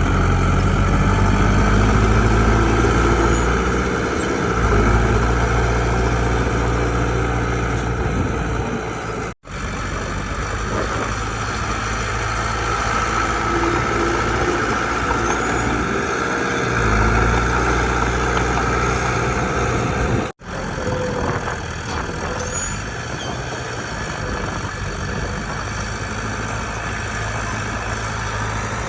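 Heavy diesel engines of earthmoving machinery running under work, a steady low drone whose note shifts a few times. The sound cuts out for an instant twice.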